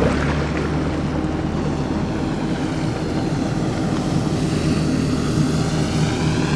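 Scale model amphibious aircraft's motor and propeller running steadily, with a constant low hum. In the last few seconds the upper part of the sound sweeps and phases as the craft moves.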